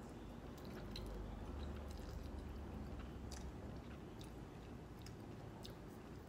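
A person chewing a mouthful of noodles, faint, with scattered small mouth clicks.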